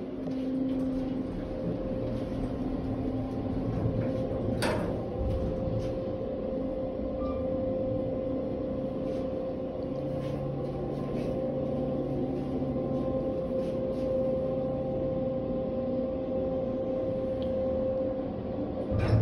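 Hotel elevator car in motion: a steady hum with a constant whine, with a single sharp knock about five seconds in.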